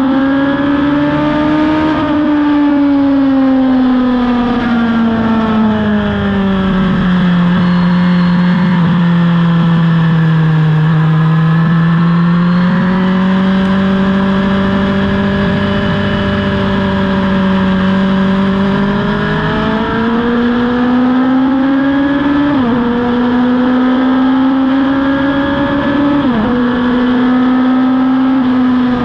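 Racing motorcycle engine at sustained high revs on track, heard from onboard: its note rises and falls smoothly as the bike goes through corners and straights, with two sharp brief dips in pitch near the end.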